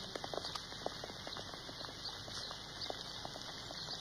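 Faint, irregular clicking of several people's footsteps on cobblestones.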